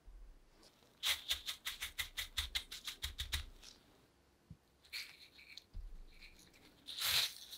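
A quick run of light taps, about six a second for a couple of seconds, as a plate of panko breadcrumbs is shaken level; near the end, crisp rustling and crackling of the crumbs as a gloved hand presses a grated potato and zucchini ball into them.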